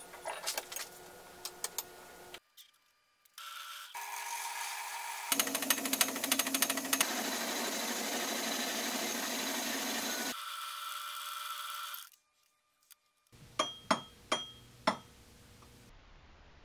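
Homemade belt-driven Gingery metal lathe turning a metal spindle with a high-speed-steel tool. The motor runs steadily, and for about five seconds in the middle the cut adds a loud, noisy scraping over the drive's hum before the lathe runs on alone. Sharp metallic clicks of tools being handled come at the start and again near the end.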